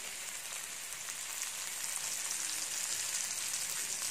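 Asparagus and garlic sizzling in butter in a hot frying pan, a steady high hiss.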